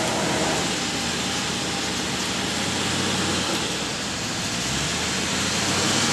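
An off-road vehicle's engine running steadily under a constant wide hiss of noise.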